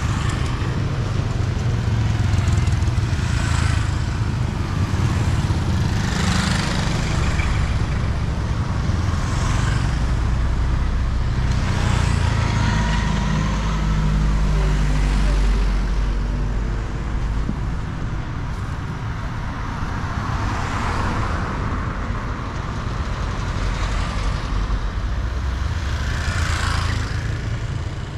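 Street traffic going by: a steady low engine rumble, with passing vehicles swelling up and fading every few seconds.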